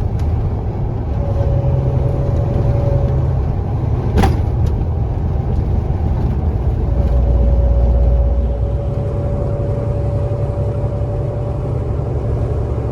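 Cab interior noise of a KAMAZ 4308 diesel truck driving on the highway: a steady engine and road hum with a thin steady whine over it, and a single click about four seconds in.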